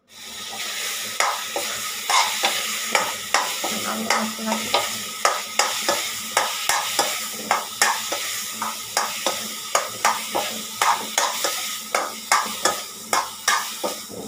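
A spatula stirring and mashing boiled potatoes in hot spiced oil in a metal kadai, scraping and knocking against the pan about two to three times a second over a steady frying sizzle.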